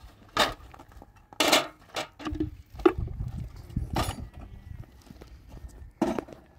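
Dishes, metal pots and a kettle clattering and clinking as they are handled in a metal washing basin and a plastic dish basket, in several separate knocks, the loudest about three seconds in.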